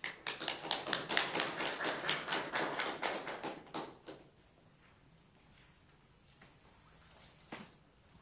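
A small group of people applauding with individual hand claps, which die away about four seconds in.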